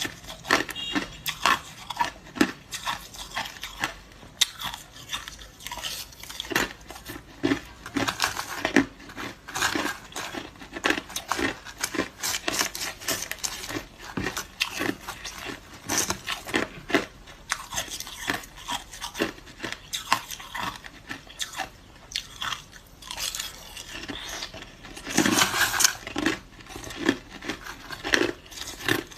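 A person biting and chewing hard crushed ice, close to the microphone, in many sharp irregular crunches, with a louder run of crunches near the end.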